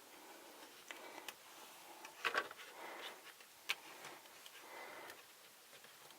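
Faint handling noises: a few light clicks and taps, the sharpest about two and a half seconds in and again near four seconds.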